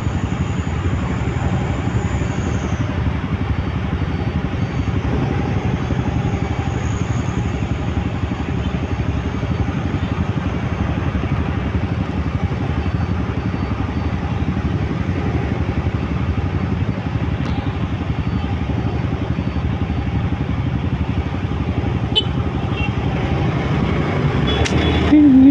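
Motorcycle engines and road traffic at a busy intersection: a steady low rumble of idling and passing vehicles. A short, louder pitched tone sounds near the end.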